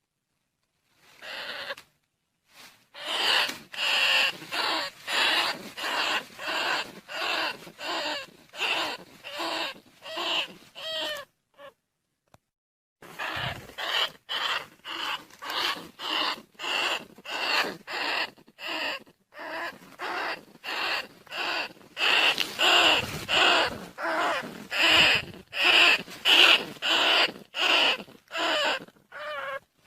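Rat lure call: repeated squeaking calls of field rats and bandicoot rats, about two a second, broken by a short pause partway through.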